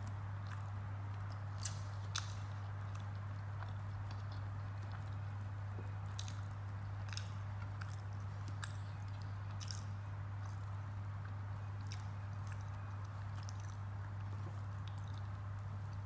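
Close-miked chewing and biting of poori and potato curry eaten by hand, heard as scattered short, sharp mouth clicks throughout. A steady low hum runs underneath.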